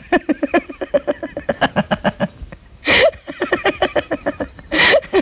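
A woman laughing hard in quick, rapid bursts, drawing sharp breaths about three seconds in and again near the end.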